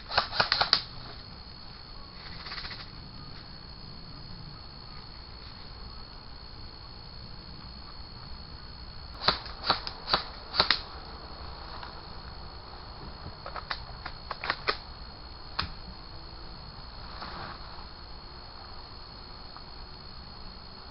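Airsoft guns firing in quick runs of sharp pops: about four shots right at the start, four more around ten seconds in, and a few more a few seconds after that. A faint steady high tone runs underneath.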